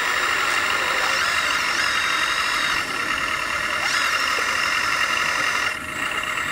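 1/14-scale RC trucks and construction machines working: a steady high mechanical whine from their motors and drives, with brief rising and falling pitch glides about two and four seconds in and a short dip near the end.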